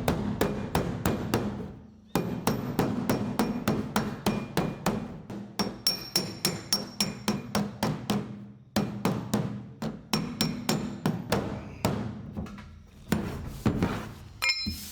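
A hammer striking metal in quick, even blows, about four a second, each with a short metallic ring; the hammering stops twice for a moment.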